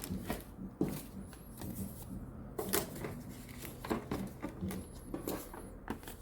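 Torque wrench and its accessories being packed into a hard plastic case: scattered light clicks and knocks of tool and plastic being handled, at irregular intervals.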